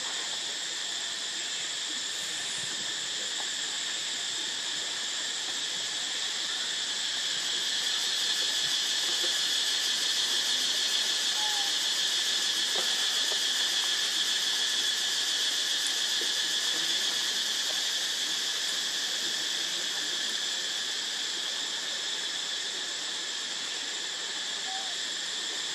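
Steady shrill chorus of insects, a continuous high drone at several pitches at once, which swells a little louder through the middle and then eases off.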